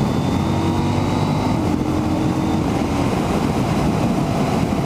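KTM 790 Duke's parallel-twin engine running steadily at road speed, with wind rushing over the microphone.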